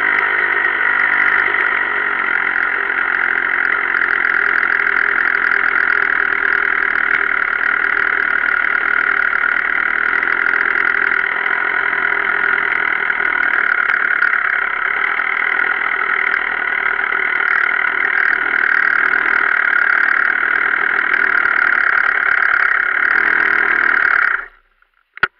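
GasGas 250 enduro motorcycle engine idling steadily close to the microphone, then stopping suddenly near the end.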